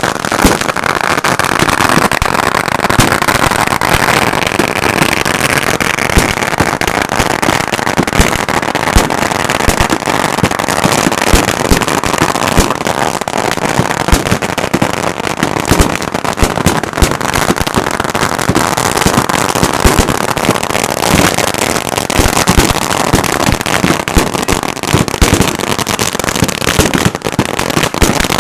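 Fireworks going off in a dense, continuous barrage of pops and bangs, many a second, without letup.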